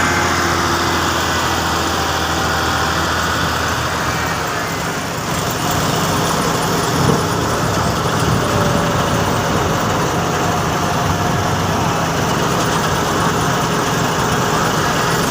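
Corn pick harvester running steadily at work, an engine drone under a dense mechanical clatter and rush.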